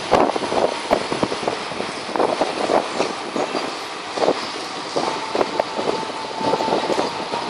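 Street traffic of trucks and cars moving along the road, with many short knocks throughout and a thin steady high tone starting about five seconds in.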